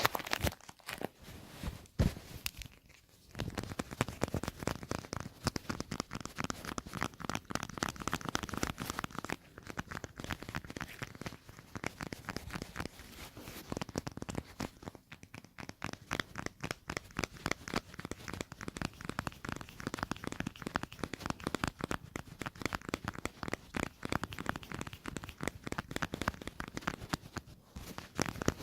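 Close-up ASMR tapping and sticky sounds: a dense run of rapid crackly taps and tacky peeling noises, with a short pause about three seconds in.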